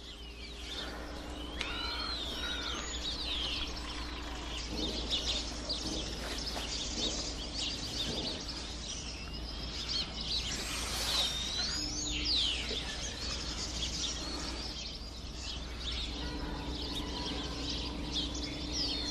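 Several birds chirping and singing in quick rising and falling whistled calls over a steady low background rumble.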